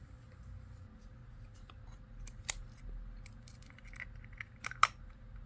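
Small sharp clicks and snips from handling a mini building-block set's packaging and plastic pieces, a scattering of ticks with two louder clicks, the loudest just before the end.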